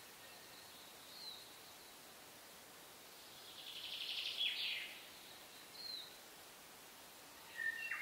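Wild birds calling over a faint steady hiss. A short high down-slurred note comes about a second in. A louder rapid trill with a falling sweep comes midway, then another short note, and several whistled notes begin near the end.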